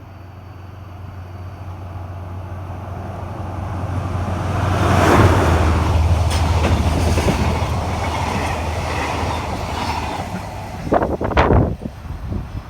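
Freight train passing close by, its noise building to a peak about five seconds in, with wheels clattering over the rails, then easing. A few loud sudden thumps come near the end.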